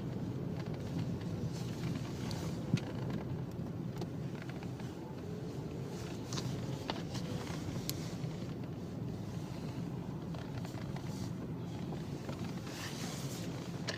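Volkswagen Golf Mk4 running with a steady low hum, and irregular sharp knocks scattered through it, one louder about three seconds in: the knock the owner is demonstrating.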